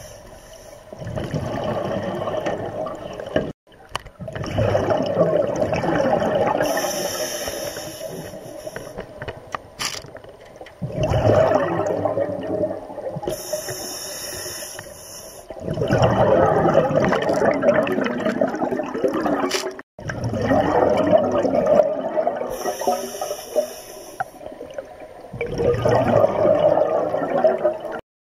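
Scuba diver breathing through a regulator underwater, breath after breath: a short hiss on each inhale, then a long rush of exhaled bubbles. It cuts off suddenly at the end.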